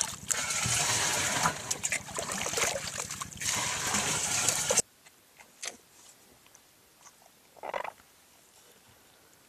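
Water scooped with a metal ladle and poured splashing into plastic jerrycans, cutting off suddenly about five seconds in. Then a much quieter stretch of faint sips from an animal drinking from icy water, with one short slurp near the end.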